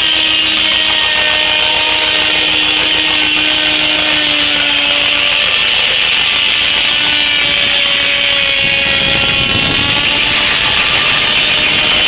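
A 52-inch circular sawmill blade, belt-driven by a John Deere tractor, cutting through a walnut log: a loud, steady rasp of the saw in the cut with a whine that slowly drops in pitch as the blade takes the load. A lower rumble builds from about nine seconds in.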